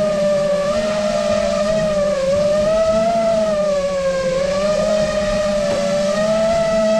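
FPV quadcopter drone's motors and propellers whining steadily, the pitch wavering up and down as the throttle changes.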